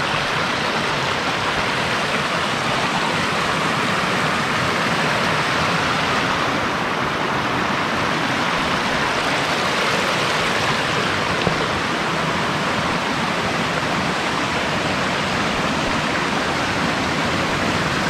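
Rapids and a small waterfall rushing over bare rock: a steady, unbroken rush of water.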